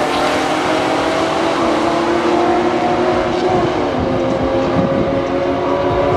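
A Pontiac GTO and a four-door Dodge accelerating at full throttle down the drag strip in a roll race. Their engine pitch drops in steps a few times as they shift.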